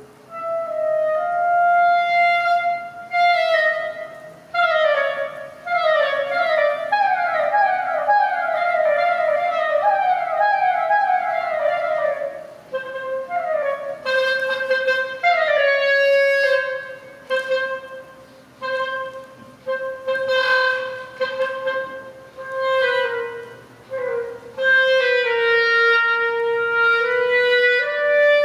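Solo clarinet playing an improvised line: quick runs of rapidly changing notes, then longer held notes in phrases with short breaks between them.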